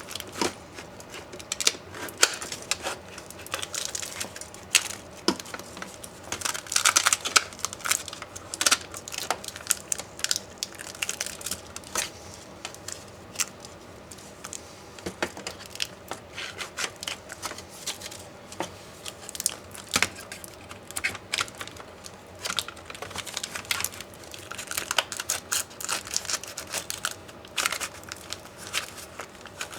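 Hands taking apart an MSI GT72VR 6RD Dominator laptop: irregular clicks and taps of plastic and metal parts, with stretches of crinkling, rustling scraping.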